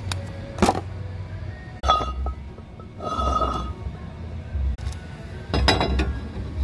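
Metal brake parts and tools clinking and knocking in several separate taps, with a short ringing metallic note about three seconds in.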